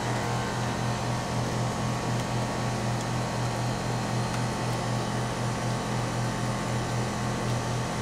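2006 Tempstar heat pump outdoor unit running in cooling mode: a steady low hum from its Copeland scroll compressor, with a slight regular throb, under the air noise of the spinning condenser fan.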